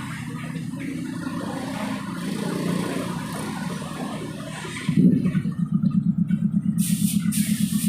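Motorcycle engine starting about five seconds in, then running with a fast, even pulsing, over a lower engine drone that runs before it. A short hiss about seven seconds in.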